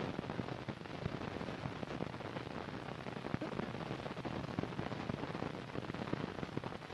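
Steady hiss with dense, irregular crackle and clicks: the surface noise of an old optical film soundtrack, with no music or other distinct sound.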